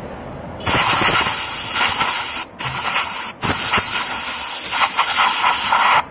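Hissing spray blast from a long nozzle pushed into a freshly re-tapped spark plug hole in a motorcycle cylinder head, clearing out the metal filings left by the tap. It starts under a second in, breaks off briefly twice, then runs on until it cuts off near the end.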